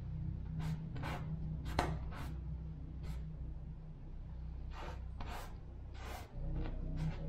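Paint being brushed onto a canvas: about ten short, irregularly spaced scratchy strokes, over a steady low hum.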